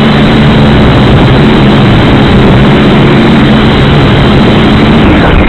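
Syma X5C-1 quadcopter's motors and propellers running steadily in flight, a loud buzzing whine with a dense rush of prop wash, heard close up through the drone's own onboard camera microphone.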